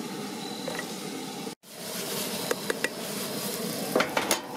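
Ground beef sizzling in a skillet on a camp stove, a steady hiss, with a few sharp clicks and scrapes of a utensil against the pan in the second half. The sound drops out for a moment about a second and a half in.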